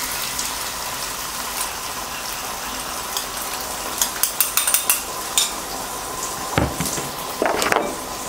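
Braising sauce poured into a hot non-stick pan of browned chicken and bitter gourd, sizzling steadily. A quick run of light clicks comes about halfway, and a couple of louder knocks come near the end.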